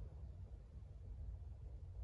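Quiet room tone with a faint, steady low hum, in a pause between spoken sentences.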